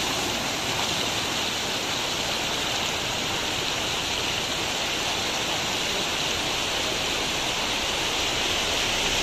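Floodwater rushing across a road and pouring off its edge: a steady rush of water.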